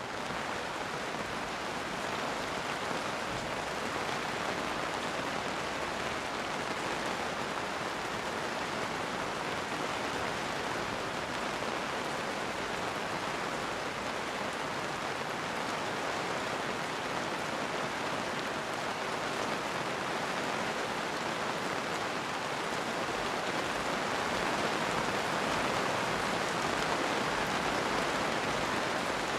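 Steady heavy rain falling, a dense even hiss of drops, growing a little louder about three-quarters of the way through.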